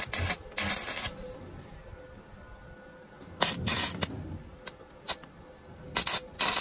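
Stick (arc) welder's arc crackling and sizzling as the electrode is struck against a joint of square steel tubing. It comes in several short bursts, each under a second long, with quieter gaps between them.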